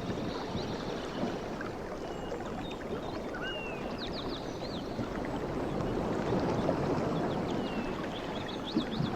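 Sea waves washing with a steady rush that swells a little in the middle, while small birds chirp and whistle briefly a few times.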